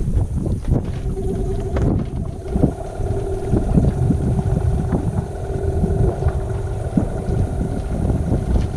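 A boat motor running steadily at low speed, its even hum coming in about a second in. Wind rumbles on the microphone, with a few light knocks.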